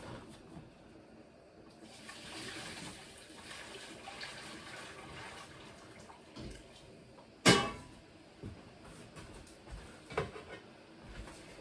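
Boiling water being poured into a water-bath canner, a steady splashing pour of about four seconds topping the water up over the jars. About a second and a half after the pour stops comes one sharp clank, the loudest sound here, followed by a few light knocks.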